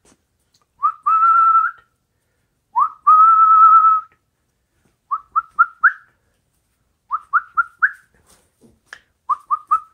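A person whistling to the puppies: two long held notes, each starting with a short upward slide, then three quick runs of four short rising chirps.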